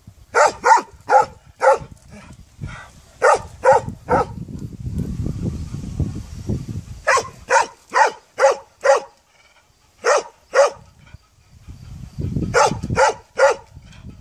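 Dog barking in runs of two to five sharp barks, with pauses of a second or more between the runs.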